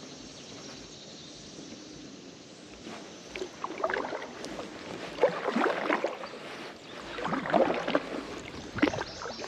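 Kayak paddle strokes: the blades dipping and splashing in the lake water, several strokes every second or two, starting about three seconds in after a faint steady hiss.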